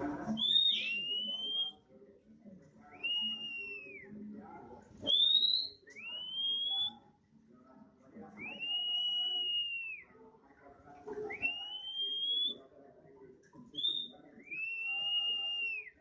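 Oriental magpie-robin singing in the 'nembak' style: a series of about eight loud, clear whistled notes, some arched and some rising, coming about every two seconds.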